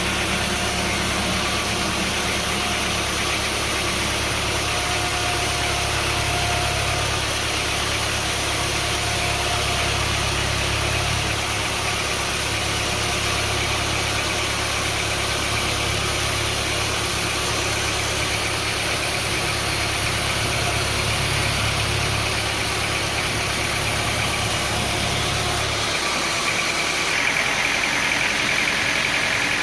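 An engine running steadily with a deep hum and a broad mechanical noise over it. About 26 seconds in, the deep hum drops away and a higher steady whine takes over.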